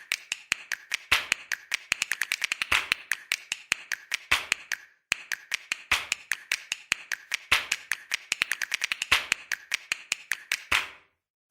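Rapid, irregular clicking taps, several a second, with a short pause about five seconds in; they stop shortly before the end.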